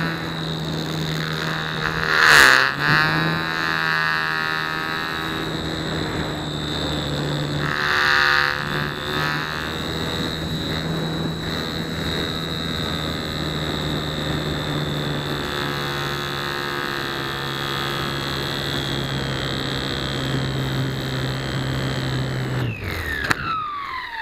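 Onboard sound of a Flite Test Nutball foam RC plane's electric motor and propeller running at a steady pitch, with wind rushing louder over the microphone twice, about 2 and 8 seconds in. Near the end the motor is cut and the whine starts falling in pitch as the propeller winds down on landing.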